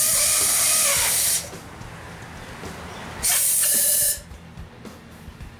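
Compressed-air blow gun, set at about 60 psi, blowing two bursts of air under a rubber sleeve to ease it along a rimfire suppressor. The first hiss lasts about a second and a half; a shorter one follows about three seconds in. Light handling knocks come between the bursts.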